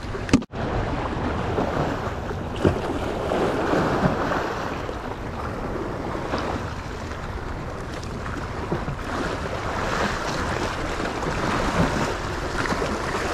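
Small sea waves washing and splashing against the rocks of a breakwater, with wind buffeting the microphone.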